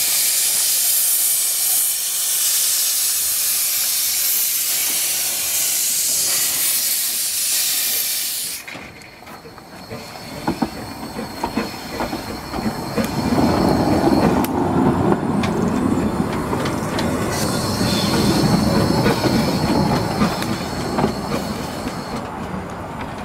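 Hunslet 2-6-2T narrow-gauge steam locomotive 'Russell': a loud, steady steam hiss that cuts off suddenly after about eight and a half seconds. Then the engine rumbles and clanks slowly along the track, with scattered clicks and a thin high whine.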